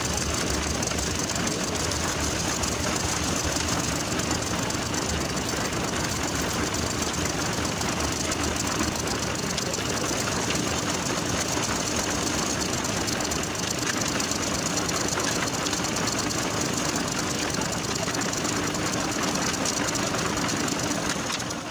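Engine of a portable concrete mixer running steadily at a constant speed.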